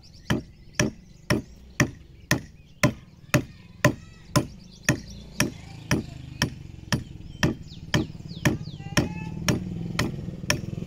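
Adze chopping into a wooden log, hewing an ox-cart axle by hand: a steady run of sharp chops, about two a second.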